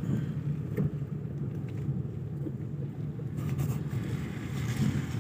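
Steady low rumble of a car's engine and cabin noise, heard from inside the car as it moves slowly through a wet parking lot, with a few faint clicks.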